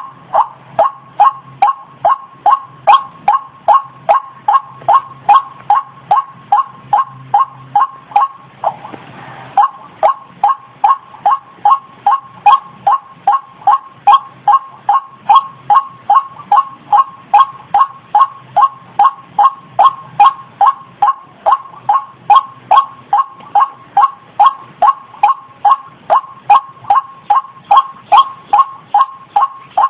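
White-breasted waterhen (ruak-ruak) lure call: a short note repeated over and over, evenly, about two to three times a second. The run breaks briefly about nine seconds in, with a short hiss, then carries on.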